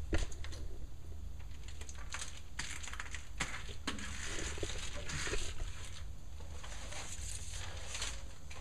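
Foil bubble-wrap radiant barrier being handled against a water heater tank: irregular crinkling and rustling with light clicks and taps, over a steady low hum.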